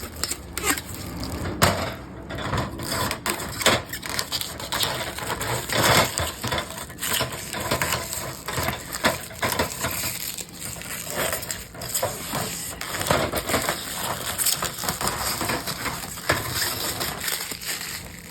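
Protective plastic film being peeled off the greenhouse side panels and crumpled, a continuous irregular crackling and crinkling with many small sharp snaps.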